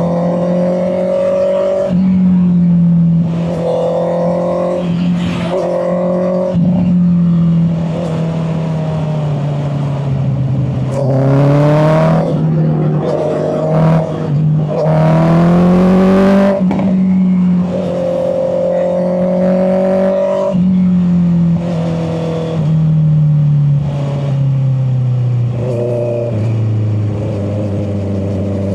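Honda CB650R's inline-four engine running under way, heard through a mic in the rider's back pocket. Its pitch steps and climbs under throttle, most strongly twice around the middle, then falls slowly as the bike slows near the end.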